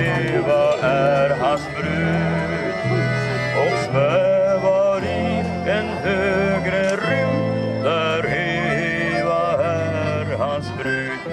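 Small live band playing a tune: accordion carrying the melody over electric guitars, with a bass line stepping from note to note underneath.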